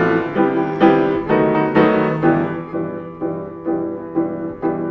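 Piano playing an instrumental passage between sung lines: separate notes and chords struck roughly every half second to second, each fading before the next.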